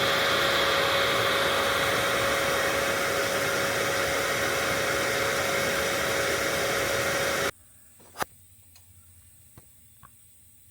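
A running motor makes a steady, loud whir with a constant hum, then cuts off abruptly about seven and a half seconds in. Near quiet follows, with a single faint click.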